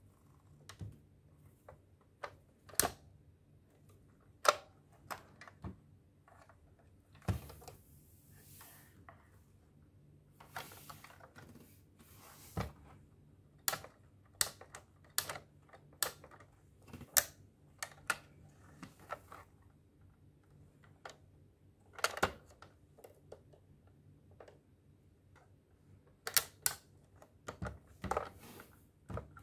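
Hard plastic clicks, taps and light rubbing as a Bandai DX Zero-Two Driver toy belt is handled and turned over in the hands: irregular scattered clicks, with a few brief scraping stretches.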